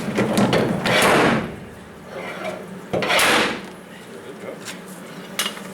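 Dent puller working on studs welded to a steel pickup bedside: two harsh, noisy pulls about two seconds apart, with a few small metallic clicks between them. A steady low hum runs underneath.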